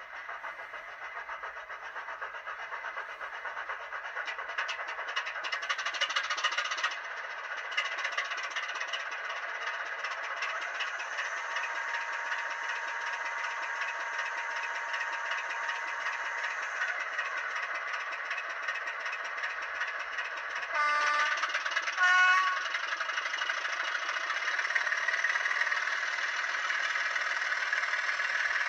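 Sound decoder in an N gauge Class 25 model playing a recorded Sulzer diesel engine through a tiny sugar-cube speaker, thin with almost no bass. The engine runs steadily after building up over the first few seconds. About 21 seconds in, a two-tone horn sounds, a short low note then a higher one.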